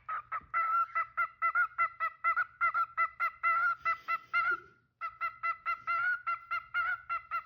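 Cockatiel chirping in a fast, steady run of short repeated calls, about five a second, with a brief break a little past halfway before the run starts again.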